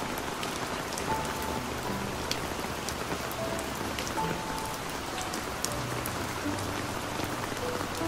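Heavy rain falling steadily, a dense even hiss with many individual drops striking close by as sharp ticks.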